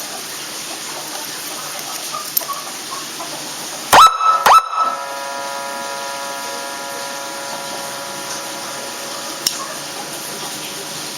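Electronic siren module played through a 10-watt horn speaker: after a steady hiss, a loud, quick rising yelp about four seconds in, then a steady buzzy horn-like tone held to the end.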